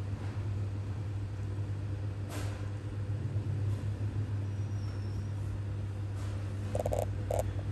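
Steady low mechanical hum, with a click about two seconds in and a few short clicks near the end.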